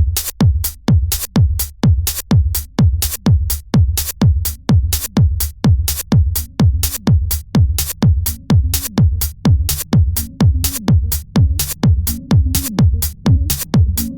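Electronic dance music with a steady, fast kick-drum beat.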